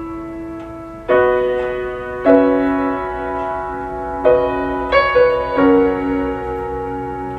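Slow solo piano music with sustained chords, a new chord or note struck every second or so, played back through audio speakers.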